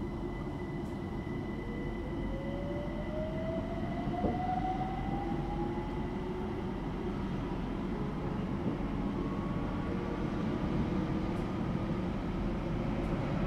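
Class 378 Electrostar electric train heard from inside, running with a steady rumble while its traction motors whine, the whine rising in pitch as the train picks up speed.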